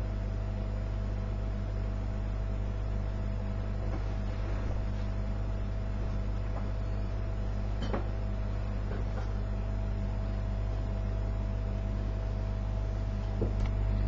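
Steady low electrical hum with a thin steady whine from running computer equipment, and a couple of faint knocks, one about halfway through and one near the end.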